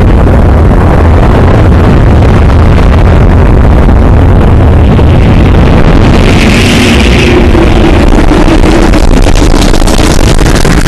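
A loud, continuous, distorted rumble with a heavy low end, held near full level throughout. A brief hiss swells about six seconds in.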